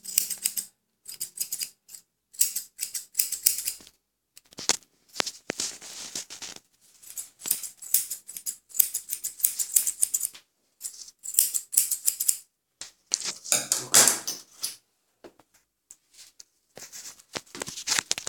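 Steel grooming scissors snipping in quick runs with short pauses between them, trimming and rounding the fur around a schnauzer's paw.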